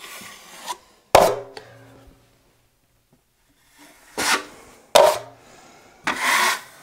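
Steel taping knife scraping joint compound and clacking against the edge of a metal mud pan: a few sharp clacks and short scrapes, with the blade also wiping mud along the wall.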